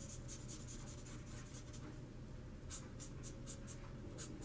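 Spectrum Noir alcohol marker tip scratching on coloring-book paper in quick, short strokes. The strokes come in two runs with a pause of about a second between them, and one more stroke near the end.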